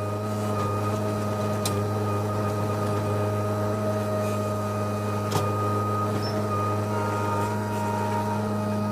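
Skid steer engine running at a steady speed, an even hum with no change in revs, with a couple of faint clicks.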